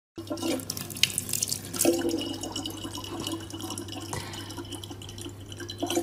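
Water running from a tap, a steady rushing hiss, over a steady low hum.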